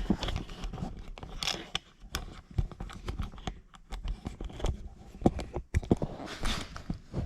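Irregular clicks, knocks and scrapes of parts being handled and fitted by hand.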